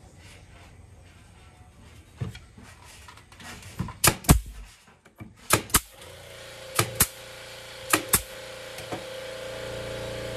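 Pneumatic nail gun firing about five times into the pine lantern top, each shot a sharp double clack, roughly a second apart. Music fades in during the second half.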